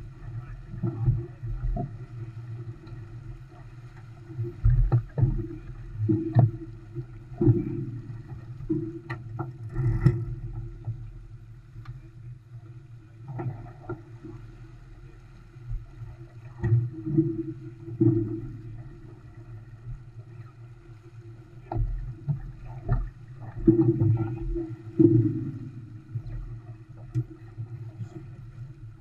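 Olson 25 sailboat under way, heard as a muffled, gusting rush of wind and water past the hull, with irregular surges and knocks throughout.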